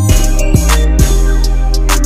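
Background music with drum hits on a steady beat over deep, sustained bass notes.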